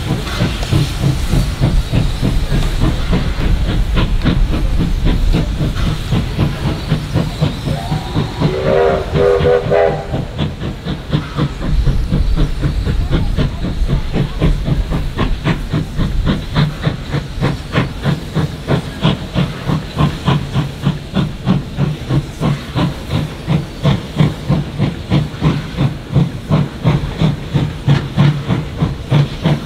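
Steam locomotive working with a rapid exhaust chuff and hissing steam, the beat becoming a clear, even rhythm in the second half. A short steam whistle sounds about nine seconds in.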